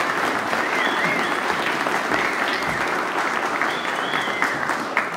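Audience applauding, the clapping starting to die down near the end.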